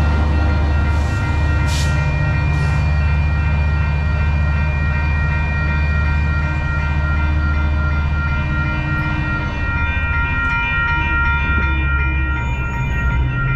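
Metrolink commuter train's diesel locomotive running steadily as the train pulls away, easing slightly near the end, over the steady ringing of the grade-crossing warning bell. A few short hisses come in the first few seconds.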